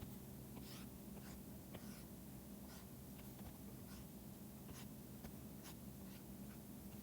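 Faint scratching and tapping of a stylus pen on a drawing tablet, in short, irregular strokes, over a low steady hum.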